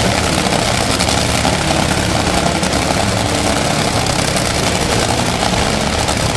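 Top Fuel dragster's supercharged, nitromethane-burning V8 idling loudly and steadily after its burnout.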